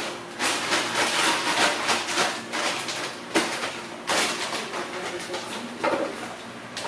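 Plastic bags rustling and crinkling as they are handled, in uneven bursts, with a sharp tap about halfway through and another near the end.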